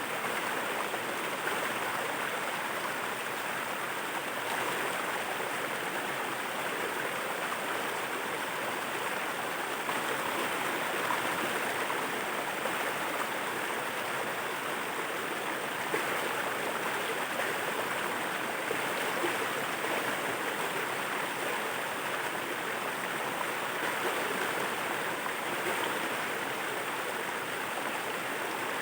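Water rushing steadily at a waterfall: an even, unbroken rush.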